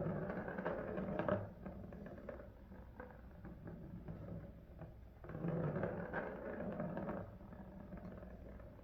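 A cat playing with a toy, making rustling and tapping in two stretches: one of about a second and a half at the start, the other about two seconds long a little past the middle.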